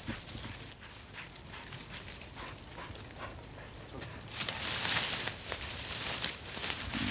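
Footsteps and brushing through woodland undergrowth and dry leaf litter, becoming denser and louder about four seconds in. One short, sharp high peep sounds less than a second in.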